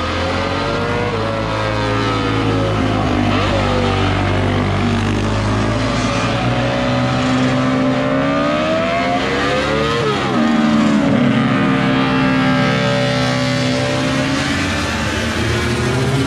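Several classic racing motorcycles riding up a hill-climb course, their engines revving up and dropping back again and again with gear changes, over a steady low hum.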